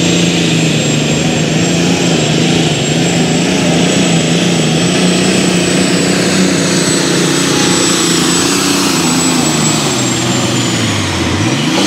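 Red International Harvester light limited super stock pulling tractor's turbocharged diesel engine running flat out under load as it drags the sled, with a steady high turbo whistle over the engine. Near the end the engine pitch drops sharply and climbs back up.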